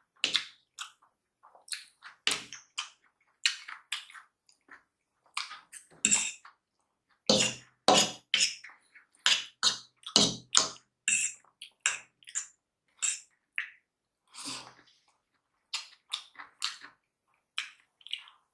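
Close-miked eating sounds of spicy paneer chowmein being chewed: many short, separate mouth sounds with brief silences between them.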